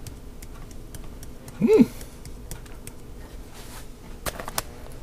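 Light plastic taps and small clicks of a spice shaker being shaken over the pot. About a second and a half in comes a short hummed voice sound that rises and falls, and two sharper clicks follow near the end.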